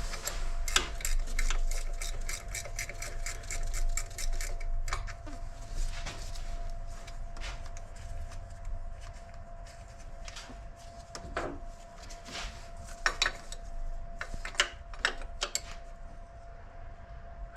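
Ratchet wrench clicking rapidly for about four seconds while a bolt is turned, then scattered clicks and knocks of tools on metal.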